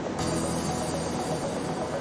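Music over the steady noise of an airliner cabin.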